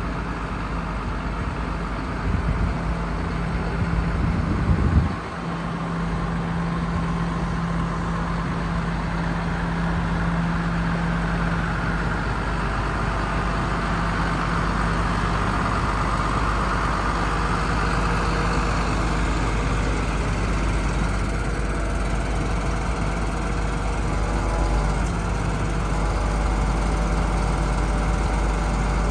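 MAN truck's diesel engine idling steadily, with a short louder rush about five seconds in.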